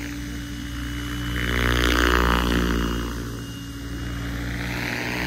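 Goosky RS7 700-size electric RC helicopter in flight: a steady hum of the main rotor and motor. It swells louder about two seconds in, then eases off.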